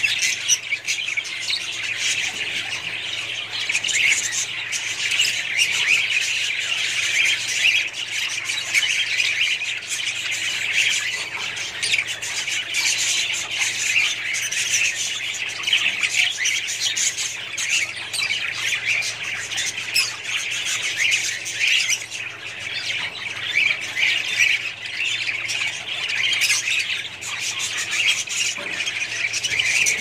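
A flock of budgerigars chattering and squawking without a break.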